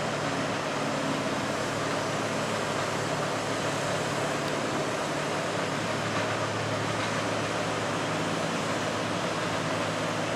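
Heavy diesel engine running steadily: a low, even hum under a wide wash of machinery noise.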